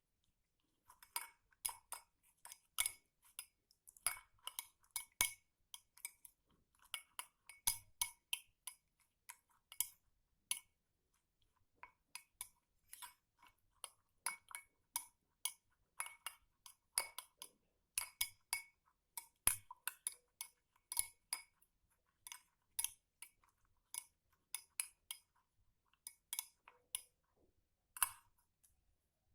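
A spoon stirring a drink of tea and orange juice, clinking against the sides in quick, irregular runs of ringing taps; the clinking stops about a second before the end.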